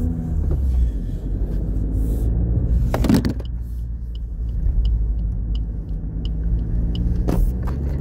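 Suzuki Swift Sport ZC33S's 1.4-litre turbocharged four-cylinder engine running at low revs, heard from inside the cabin over road noise, its pitch drifting up and down a little. Two knocks, about three and seven seconds in, and a light regular ticking of close to two a second between them.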